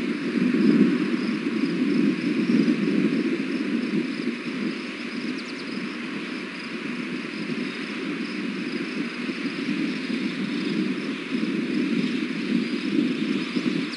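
Steady outdoor rumble with a surging low hiss on an open-air nest-camera microphone; no bird calls.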